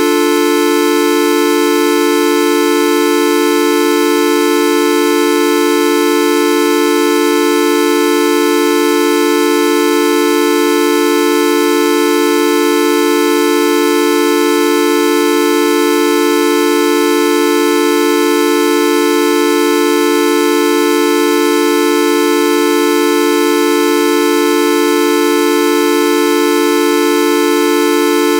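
The Videoup V1.2 sound effect: a loud, buzzy, horn-like electronic tone held perfectly steady, with no change in pitch or loudness.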